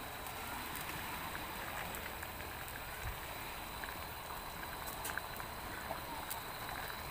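Steady hiss with scattered light clicks and a soft thump about three seconds in, as okra pods are laid into a steel pot of fish.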